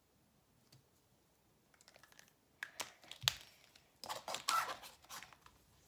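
Light plastic clicks and clatter of paint marker pens and their caps being handled in a zip-up marker case, starting about two seconds in, with a sharp click a little after three seconds and a busier run of clicks from about four seconds.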